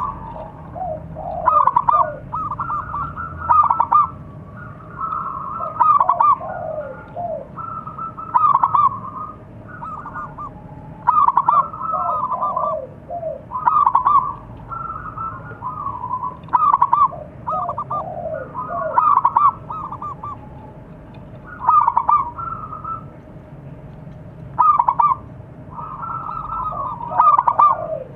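Zebra dove (perkutut) cooing: phrases of rapid, stuttering coos repeat every two to three seconds, with lower, falling notes in between.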